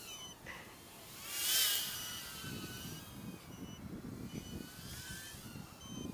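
Micro brushless FPV racing quadcopter (Awesome Q95, 7500kv motors) in flight, its motors and props giving a thin whine that rises and falls in pitch with the throttle. There is a louder, hissier swell about a second and a half in.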